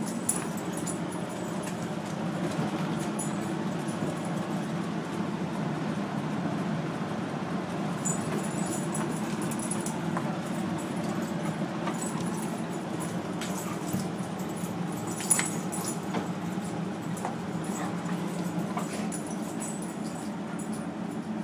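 German Shorthaired Pointer and Weimaraner puppies play-wrestling: continuous low play growling with scuffling, and collar tags jingling now and then.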